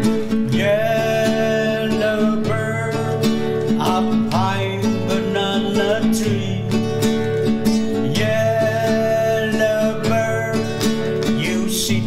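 Music: acoustic guitar strumming chords, with a higher melody line of held, sliding notes over it.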